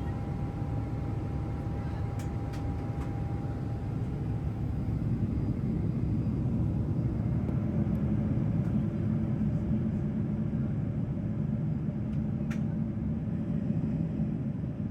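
Boeing 777-300ER's jet engines heard as a steady rumble inside the passenger cabin on departure, growing louder about five seconds in. A thin steady whine fades out in the first few seconds.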